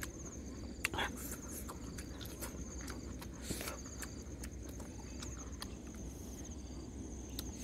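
Insects trilling steadily in a high, fast-pulsing buzz, with a person's chewing and mouth sounds and scattered small clicks over it.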